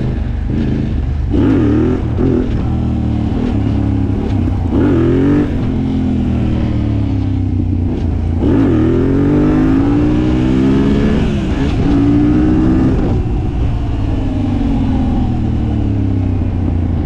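Yamaha MT-07 parallel-twin engine swapped into a Yamaha Raptor quad, ridden on a paved road. It revs up and eases off several times, its pitch rising and falling.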